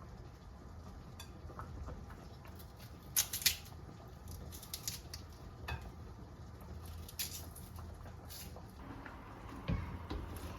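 Kitchen food-prep handling sounds: scattered light taps and clicks of utensils and dishes, the loudest a quick pair about three seconds in, over a steady low hum.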